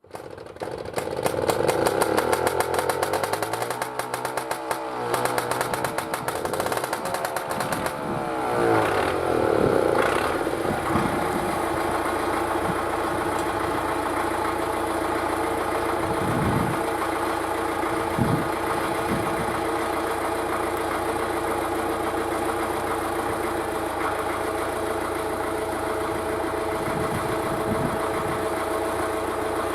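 An engine starting up, running rough and fast at first, revved briefly twice about eight to ten seconds in, then settling into a steady idle.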